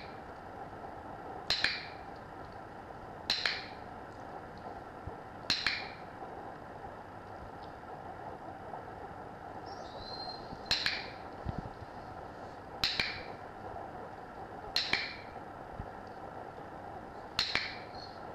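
Dog-training clicker clicking seven times, each a sharp double click, a couple of seconds apart with a longer pause in the middle. Each click marks the dog lifting her front paw and signals that a treat is coming. A steady hum of room noise runs underneath.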